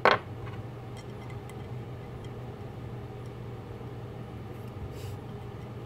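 Faint, scattered light metallic ticks as fingers turn a threaded steel stud in a mini lathe slide, over a steady low hum. A short knock right at the start.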